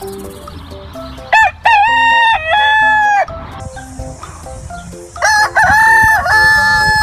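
Rooster crowing twice, each crow about two seconds long, over light background music.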